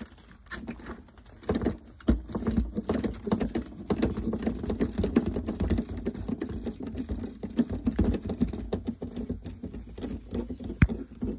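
Hands working a plastic tail light assembly while freeing the backup-light bulb socket and its wiring: a steady run of small clicks, taps and rustling, with one sharper click near the end.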